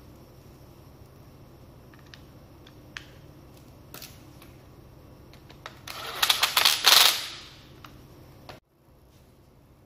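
Power-tool parts being handled: a few light clicks, then a rapid clatter of clicks for about a second and a half as the plastic housing and motor unit knock together. A low background hum cuts off abruptly near the end.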